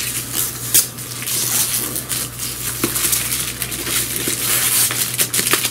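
Shiny gift-wrapping paper crinkling and tearing as a present is unwrapped by hand, a dense run of rustles and small crackles.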